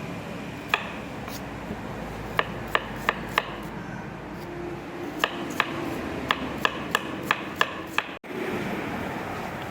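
About a dozen sharp, hard knocks in two quick runs, roughly three a second, over a steady background hum, with a brief cut-out near the end.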